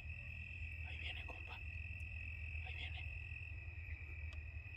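Crickets trilling steadily, one unbroken high note, over a steady low rumble.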